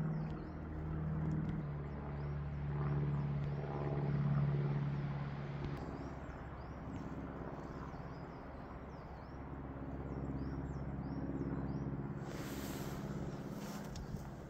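A steady, low engine drone that swells and fades, with faint high chirps repeating about twice a second.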